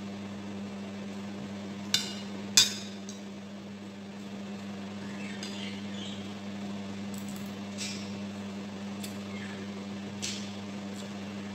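Metal spoon clinking against a ceramic bowl while eating: two sharp clinks about half a second apart around two seconds in, then three lighter clinks later on. A steady low hum runs underneath.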